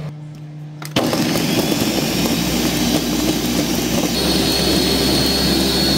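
Countertop blender switched on about a second in, puréeing roasted tomatoes, chiles and chocolate tablets into mole sauce. Its sound changes at about four seconds, when a steady high whine comes in over the motor.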